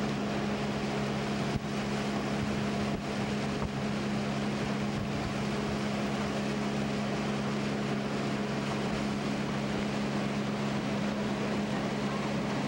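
Boat motor running steadily under way, heard from on board, a constant hum over the rush of wind and water. A brief knock about one and a half seconds in.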